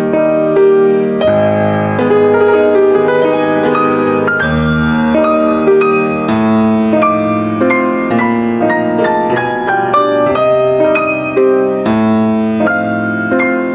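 Piano music: single notes and chords struck one after another in a flowing, unbroken melody.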